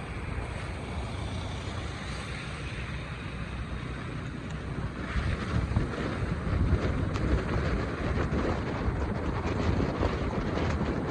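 Street ambience: a steady rumbling hiss of traffic with wind buffeting the microphone, growing louder about halfway through.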